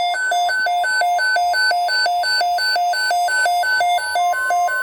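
Emergency alert tone: electronic beeps alternating between a low and a high pitch, about three pairs a second, over a steady tone that steps up slightly in pitch near the end.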